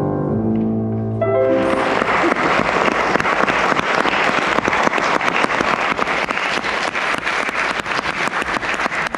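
The last chords of a song on a grand piano, then a small audience breaks into applause about a second and a half in and keeps clapping steadily.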